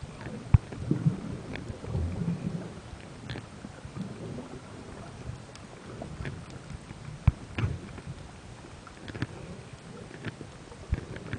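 Muffled underwater sound picked up by a camera in an underwater housing: a low rumble of moving water with a few sharp thumps and many small scattered clicks.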